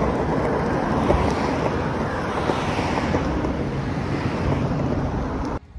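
Wind buffeting the microphone over the rumble of longboard wheels rolling on asphalt, a steady noise that cuts off abruptly near the end.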